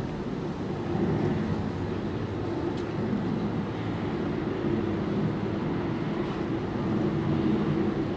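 Steady low drone of a large car ferry's engines and machinery heard from a distance as it manoeuvres slowly toward its berth.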